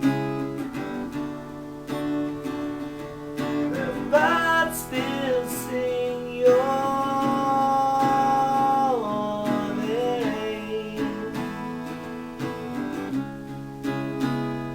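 Song accompaniment of strummed acoustic guitar, with a melody line that slides up about four seconds in and holds one long note for a few seconds before falling away.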